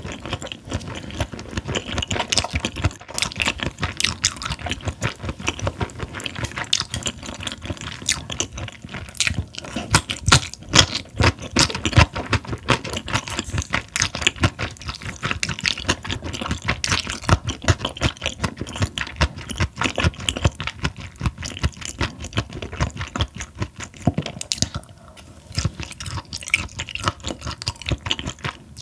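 Close-miked chewing of raw Chinese herring sashimi: a dense, continuous run of rapid mouth clicks and smacks.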